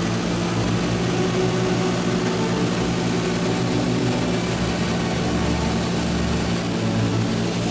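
Aircraft engine droning steadily.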